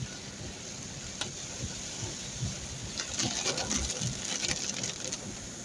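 Heavy rain falling in a steady hiss, with a run of rapid tapping from about three seconds in.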